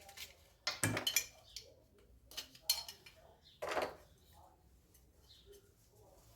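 Metal hand tools and brake parts being picked up and set down: a few short clinks and knocks, clustered about a second in, with two more near the middle.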